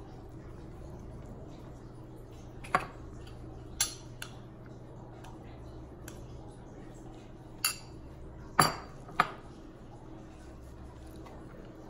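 A metal spoon clinking against a glass bowl and dishes: about six short, sharp clinks, spread out one at a time, the loudest about two thirds of the way through.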